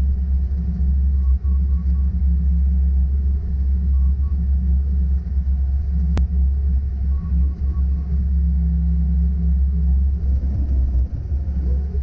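Bobcat S595 skid-steer's diesel engine running under load, heard from inside the cab as a heavy steady low rumble while the plow pushes snow. A single sharp click sounds about six seconds in.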